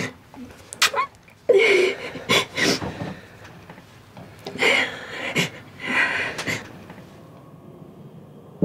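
A woman crying: breathy, gasping sobs in bursts, one with a falling pitch about a second and a half in, dying away for the last couple of seconds.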